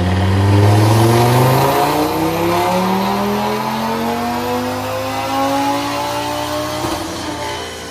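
Audi TT RS's turbocharged five-cylinder engine, stage-one tuned with an aftermarket intake, making a full-throttle pull on a chassis dyno. Its pitch rises steadily for about seven seconds, then drops off sharply as the throttle is lifted near the end.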